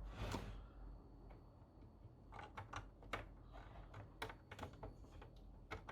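Faint, irregular clicks and taps of a cable plug being handled and fitted into the PS5's rear ports, about a dozen light knocks of plastic and metal.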